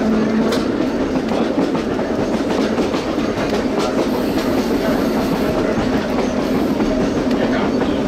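Chicago Rapid Transit 4000-series electric rapid-transit car running along the track, heard from inside the car: steady wheel-on-rail rumble with clickety-clack from the rail joints. A low traction-motor hum fades out about half a second in.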